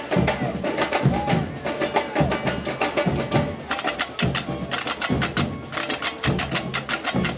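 Samba batucada drum ensemble playing a fast samba rhythm: a dense rattle of rapid snare and hand-drum strokes over deep bass drum beats about once a second.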